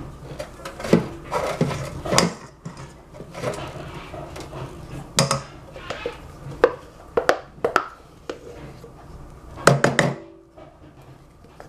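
A silicone spatula stirring and scraping a thick chocolate mixture in a small stainless-steel saucepan, with irregular knocks and scrapes against the pot. About ten seconds in, a spoon clatters against the pot as it adds cream.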